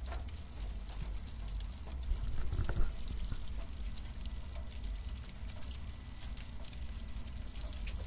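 Cardboard burning: a steady crackle of many small pops over a low rumble, swelling louder about two to three seconds in.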